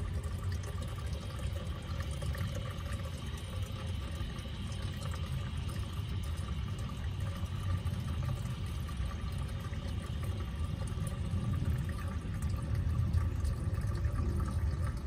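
Petrol pouring steadily out of a car's opened fuel line where the old fuel filter has just been disconnected.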